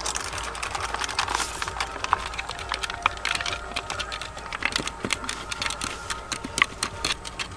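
Wooden dal ghuta spun between the palms in an aluminium handi of milk, churning the milkshake. Its head knocks against the metal pot in rapid, irregular clicks.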